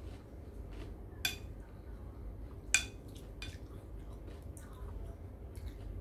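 Metal spoon clinking against a bowl while eating: two sharp ringing clinks, one about a second in and a louder one just under three seconds in, with fainter spoon clicks and scrapes between.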